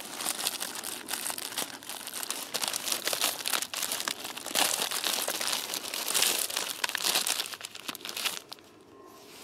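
Clear plastic inner bag of an Ameriqual MRE crinkling and crackling as hands tear it open and handle the cardboard entrée box and packets inside. The crinkling stops about eight seconds in.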